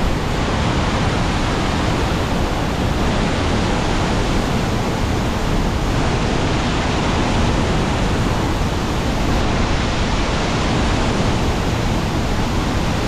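Waterfall roaring steadily: an even, loud rush of falling water with no breaks.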